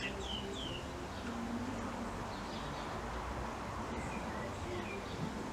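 Small garden birds chirping: a couple of short falling chirps near the start and fainter ones about four seconds in, over a steady background rumble.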